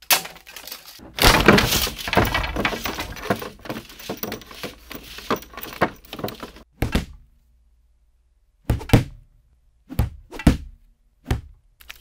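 Foley effects synced to on-screen action: about five seconds of dense crashing, breaking and rustling, then a handful of separate heavy thuds about a second apart.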